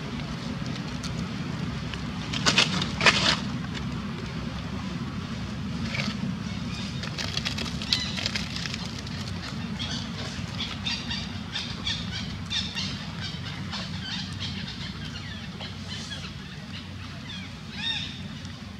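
Dry leaves rustling and crackling as a macaque infant crawls through them against its mother. There is a louder burst of crackling a few seconds in and a run of small crackles in the middle, over a steady low hum.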